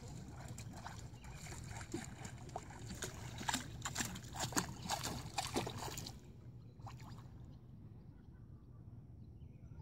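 A topwater retrieve: fly line stripped in quick hard pulls while a large bubble-head popper fly gurgles and splashes across the water, a rapid run of short splashy sounds that stops about six seconds in.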